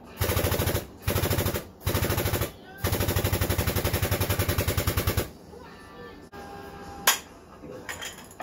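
Air-over-hydraulic ram on a 2-ton engine hoist pumping in four bursts of rapid, even pulsing, the last about two and a half seconds long, as the hoist takes up the weight of the engine. About seven seconds in comes a single sharp metallic knock, with a few lighter knocks after it.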